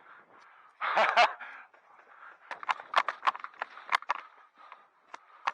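Footsteps on a hard floor: a quick, irregular run of sharp taps, with a few more scattered taps after it. A short loud burst of noise comes about a second in.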